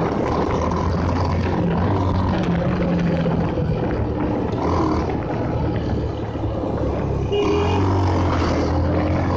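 A Bajaj Pulsar motorcycle's single-cylinder engine running under way, with steady wind and road noise. A horn sounds briefly about seven seconds in, as a truck comes past.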